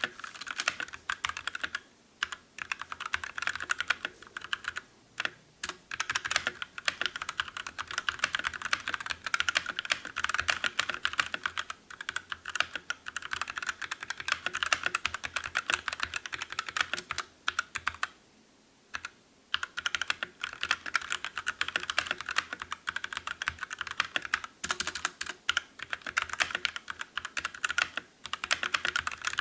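Fast, continuous typing on a mechanical keyboard with linear red switches, a dense clatter of key strikes broken by a few short pauses, the longest about 18 seconds in.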